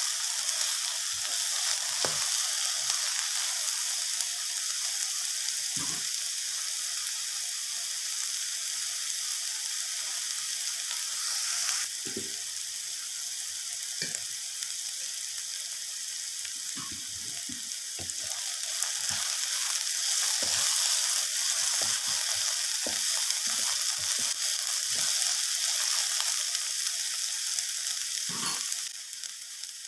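Chopped onion, garlic and bird's eye chillies sizzling in hot oil in a nonstick wok, with now and then a scrape or knock of a wooden spatula stirring them. The sizzle drops a little near the end.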